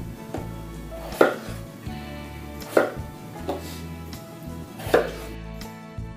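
Chef's knife cutting raw potatoes on a wooden cutting board: a handful of sharp knocks as the blade strikes the board, irregularly spaced about a second apart, with soft background music underneath.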